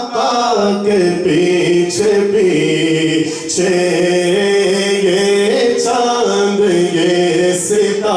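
A man singing a naat, an Urdu devotional poem in praise of the Prophet, solo and unaccompanied. He holds long, ornamented, wavering notes, in several phrases with short breaths between them.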